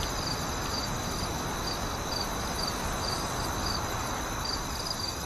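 Crickets chirping in a night ambience: short, high chirps come about twice a second over a steady background hiss.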